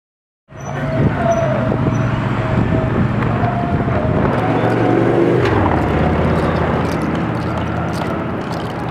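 Motor vehicle engine running steadily in street traffic, with a short falling whine about five seconds in. The sound begins abruptly about half a second in, after a brief silence.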